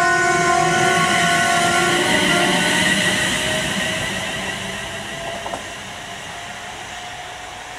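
London Midland Class 350 Desiro electric multiple unit accelerating away, its traction equipment giving a chord of steady musical tones that shift in steps. The tones and running noise fade as the train draws away.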